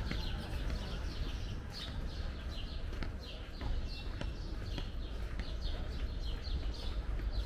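Small birds chirping over and over, short falling chirps several times a second, over a low background rumble.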